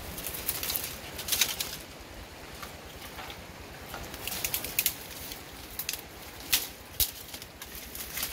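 Leaves rustling and twigs and branches cracking as someone pushes through dense brush, with several sharp snaps spread through.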